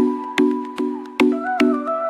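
Background music with a steady beat, about two and a half strokes a second, and a melody line over it.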